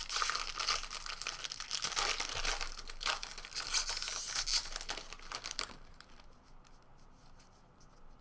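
A trading card pack wrapper being torn open and crinkled, a dense crackle lasting about five or six seconds, then only a few faint clicks.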